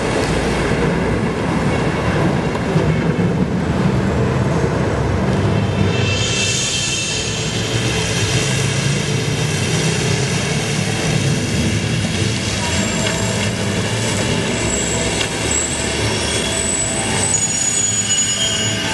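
A train running past with a steady low rumble and a high, thin wheel squeal. The squeal grows stronger about six seconds in.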